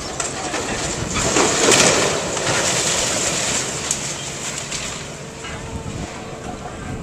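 Brick masonry and debris crashing down as an excavator pulls a wall section apart. The crash builds about a second in, peaks, then fades away over several seconds, with the excavator's engine running steadily underneath.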